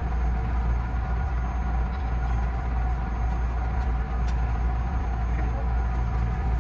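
JR West 207 series electric train standing at a platform, its onboard equipment giving a steady low hum in the driver's cab, with a few faint ticks.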